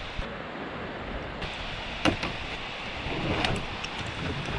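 Steady rush of a fast-flowing river, with footsteps, brush rustling and a few sharp knocks as a plastic kayak and paddle are carried down a rocky path. The knocks come about two seconds in and again around three and a half seconds.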